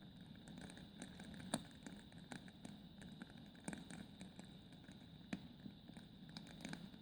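Logs burning in a fireplace, crackling faintly with irregular small pops and snaps over a steady low rustle of the fire. The sharpest snaps come about a second and a half in and again a little after five seconds.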